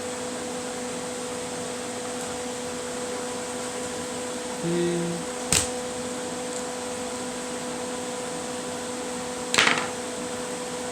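Steady mechanical hum with a fan-like hiss, such as a kitchen fan. A short low hum comes about halfway through, then a sharp click, and a brief rasp near the end.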